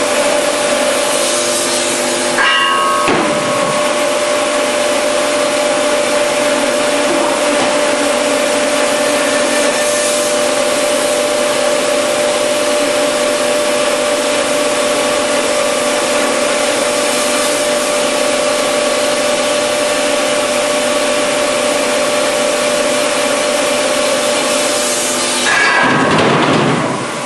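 Automatic package cross-cut saw cutting through a stacked package of sawn timber, a loud steady machine noise with a constant hum. It breaks briefly about three seconds in, and near the end grows louder for about a second as its pitch falls away.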